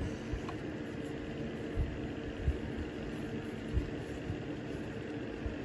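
Steady low machine hum, with a few faint knocks as a screw is tightened down with an Allen wrench.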